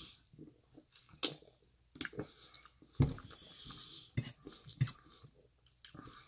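Close-up eating sounds: a drink swallowed at the start, then chewing, with a metal fork clicking and scraping against a stainless steel bowl of rice. Scattered sharp clicks, a few of them louder, and a short breath.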